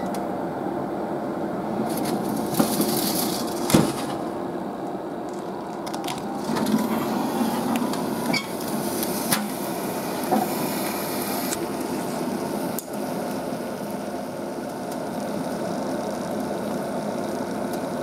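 Giant clams and horned turban shells sizzling as they grill, a steady hiss with a scattering of sharp pops and cracks.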